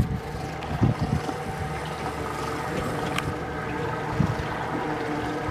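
Outboard motor of a small boat running steadily, with a few wind thumps on the microphone.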